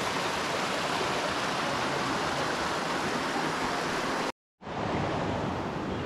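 A mountain river rushing over boulders in small rapids, a steady hiss of running water. It cuts out abruptly for a split second about four and a half seconds in, then resumes slightly duller.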